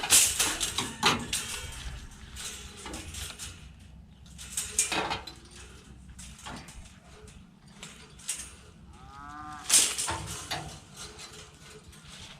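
Knocks and clatters of scrap and junk being handled and moved. About nine seconds in there is a short pitched squeak that rises and falls, just before the loudest knock.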